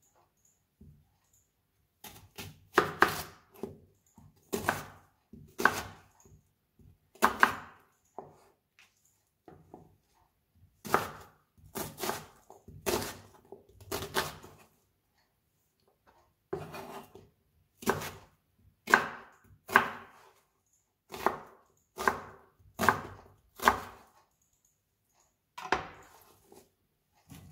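Chef's knife chopping an onion on a plastic cutting board: separate sharp knife strikes, roughly one a second, with a short pause about halfway through.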